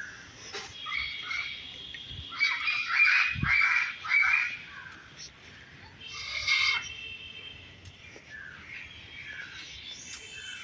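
Zoo birds calling: a run of loud, harsh calls about two seconds in and another burst about six seconds in, over fainter steady high chirping.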